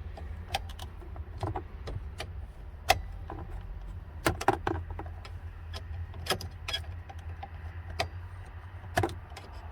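Scattered light metallic clicks and taps as locking pliers clamped on a small screwdriver bit are worked round to back a screw out of a steering column, over a low steady hum.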